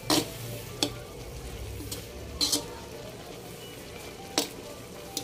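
Squid adobo simmering in its dark sauce in a pan, a steady bubbling sizzle. About five short, sharp clicks are scattered through it.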